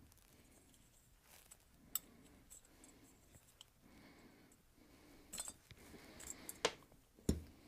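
Faint handling clicks and light metal taps as the float is worked off a Briggs & Stratton Flo Jet updraft carburetor, with two sharper knocks near the end.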